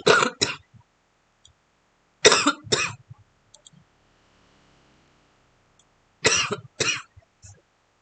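A person coughing three times, each time a quick double cough: near the start, about two seconds in, and about six seconds in.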